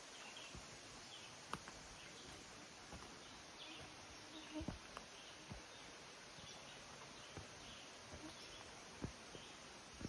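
Faint insects chirping in repeated short calls over quiet forest ambience, with a few soft footsteps on a dirt and rock trail.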